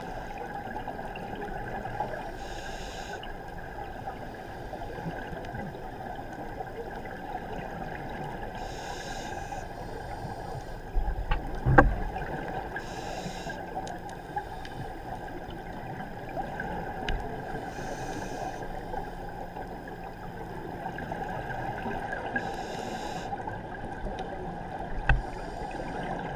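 Muffled underwater ambience heard through a camera housing, broken every four to five seconds by the hiss and gurgle of a scuba regulator exhaling bubbles. A few knocks, the loudest about twelve seconds in.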